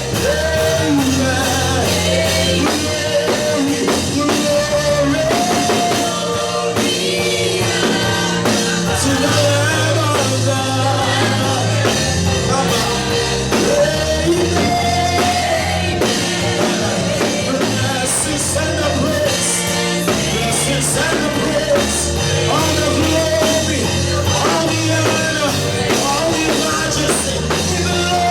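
Live gospel worship music: a band with drum kit, bass and guitar playing steadily under singing of a slow worship song of praise to the Lamb.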